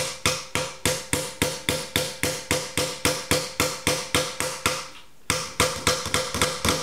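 Kelvin .23 multi-tool hammer driving a big nail into a wooden plank: steady blows about three a second, each with a short ringing tone. The hammering stops briefly about five seconds in, then resumes a little faster.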